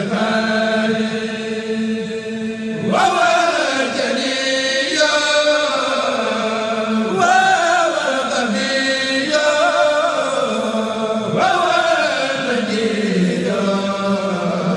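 Male voices of a Mouride kourel chanting a khassida (Sufi devotional poem), in long held notes that bend in pitch, with new phrases entering about three, seven and eleven seconds in.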